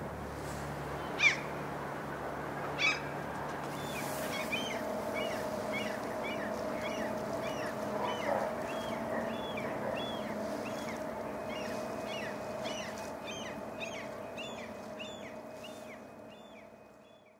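A songbird repeating short chirping notes about twice a second, over a steady machine hum. Two sharp knocks come in the first few seconds, before the chirping starts.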